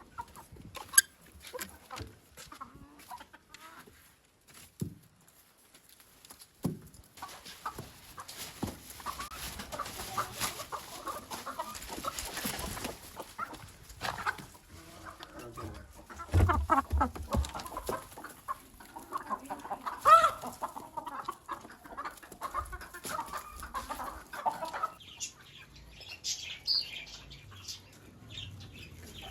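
Desi chickens clucking and calling in a flock, the calls dense and overlapping through most of the stretch, with a few low thumps partway through. Near the end, higher, thinner chick peeping takes over.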